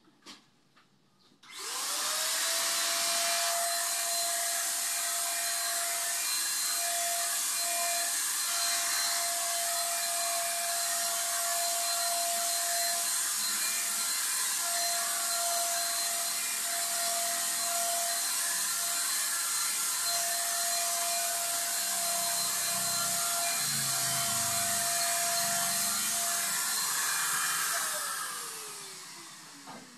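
Handheld electric paint spray gun switched on about a second and a half in: its motor spins up and runs steadily with a high whine over an airy hiss while spraying paint, then winds down near the end.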